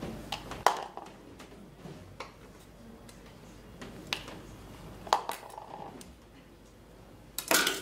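Scattered clicks and knocks of kitchen tools and bowls being handled on a worktop, a handful of separate sharp ones, the loudest near the end.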